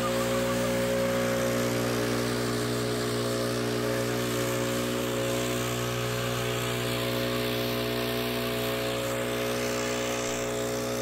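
Gas backpack leaf blower's two-stroke engine running steadily at high throttle, with the rush of its air blast.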